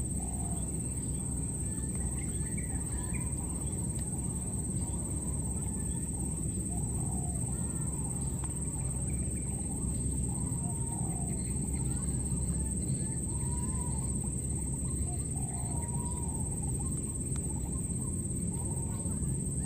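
Baby monkeys crying with short, thin coo calls that rise and fall, repeated every second or two, the sound of infants left without their mother. A steady high insect drone runs underneath.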